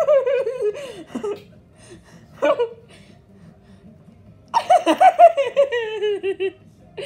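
A person laughing in bursts: a laugh at the start, a short one about two and a half seconds in, and a longer run of laughs falling in pitch from about four and a half to six and a half seconds.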